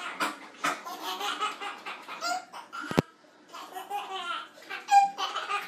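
A small child laughing hard in repeated bursts of belly laughter, with a single sharp click about three seconds in.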